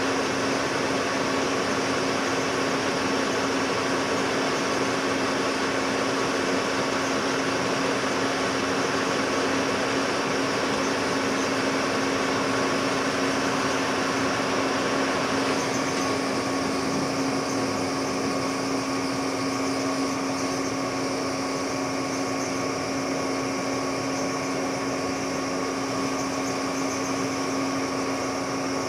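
Metal lathe running with a steady hum, turning down the end of a trailer-jack screw. About halfway through, the hissy cutting noise drops away and the lathe runs on.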